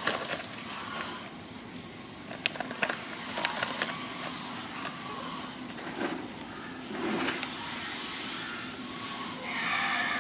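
Plastic snack packet crinkling as a baby macaque handles it: a few sharp crackles about two and a half to three and a half seconds in, and a rustle near the end, over a steady background hiss.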